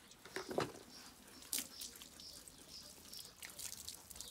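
Water splashing and dripping as a Bernese Mountain Dog's soaked coat is washed by hand and rinsed from a plastic cup: scattered small splashes, a louder one about half a second in and a sharp one about a second and a half in.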